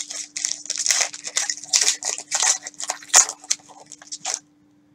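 Shiny plastic wrapper of a Panini Prizm basketball card pack crinkling and tearing as it is pulled open: a run of irregular crackles and snaps that stops shortly before the end.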